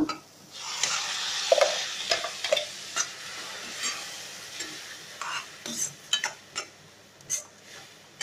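Tomato purée hitting hot oil and fried onions in a non-stick pan, sizzling loudly at first and dying down over a few seconds. A metal slotted spoon stirs it in, scraping and clicking against the pan.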